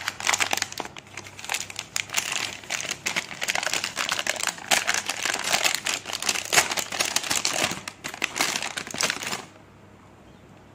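Hands tearing open and crumpling a brown paper mailer, a dense run of paper crackles and rips that stops about a second before the end.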